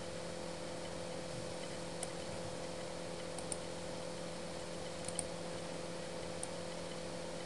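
Steady hum of the recording setup with a few faint, scattered clicks of a computer mouse as the page is scrolled.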